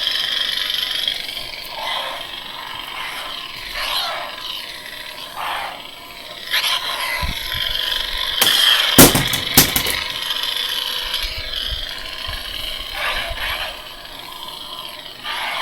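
Electronic sound-font lightsaber playing its Kylo Ren font: a steady humming crackle, swelling with swing sounds every second or two as the blade is moved. A couple of sharp, loud bursts come about nine seconds in.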